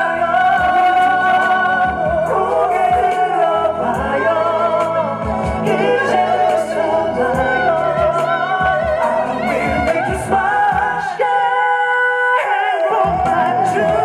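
A man singing a slow ballad live into a handheld microphone over musical accompaniment, his held notes wavering with vibrato. Near the end the low accompaniment drops out for a couple of seconds, leaving the voice over sustained chords before the bass returns.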